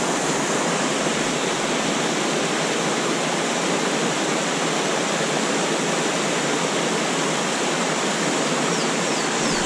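Small waterfall pouring into a deep plunge pool on a mountain creek: a steady, even rush of falling water.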